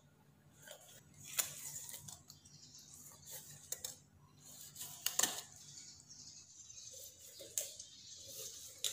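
Kitchen knife scraping and cutting a whole tilapia on a wooden chopping board: faint scraping with a handful of sharp clicks and taps, the loudest about five seconds in.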